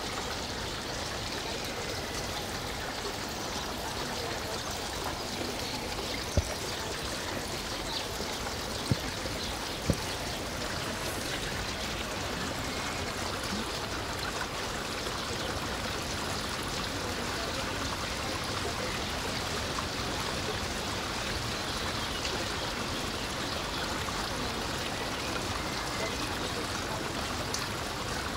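Steady rushing of running water, broken by three short, sharp knocks between about six and ten seconds in.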